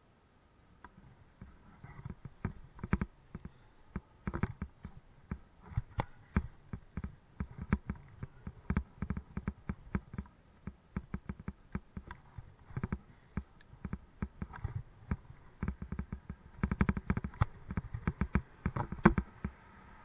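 Irregular clicks, knocks and rattles from a Raleigh Mustang Elite mountain bike being handled and moved. They start about two seconds in and come thickest near the end.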